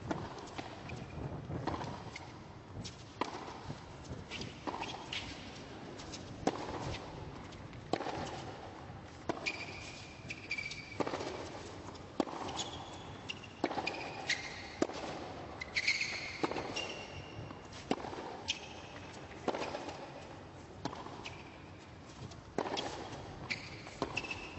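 Tennis ball struck back and forth with racket strokes in a long baseline rally on a hard court. Sharp hits and bounces come about once a second, with brief high sneaker squeaks between them.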